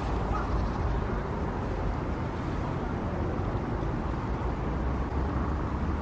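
Helicopter flying, a steady low rumble that drowns out the woodpecker's pecking.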